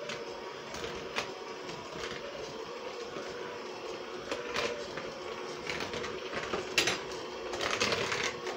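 Electric hand mixer running steadily, its beaters churning oil into a dry flour-and-sugar mix for cake batter, with a few sharp clicks along the way.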